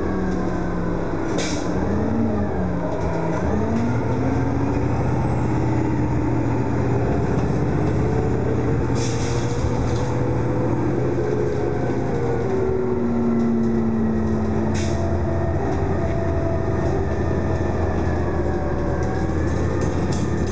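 Cabin sound of a dieselized New Flyer C40LF city bus under way: its Detroit Diesel Series 50 engine running, with a whine that rises and falls in pitch as the bus speeds up and slows. A few brief rattles come from the interior.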